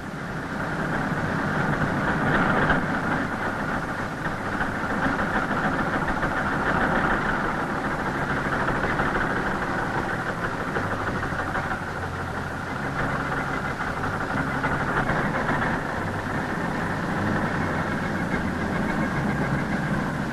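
Tractor engine and a tractor-drawn stalk shredder running steadily while chopping corn stalks in the field.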